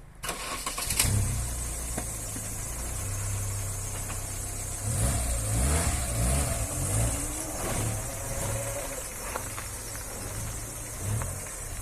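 A motor vehicle engine starts up and runs, its pitch wavering up and down for a couple of seconds midway as it is revved or driven off.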